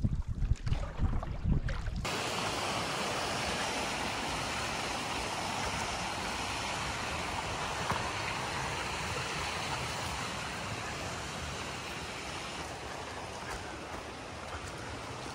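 Gusty wind rumbling on the microphone for about two seconds, then cut off abruptly by a steady, even rushing hiss that eases slightly near the end.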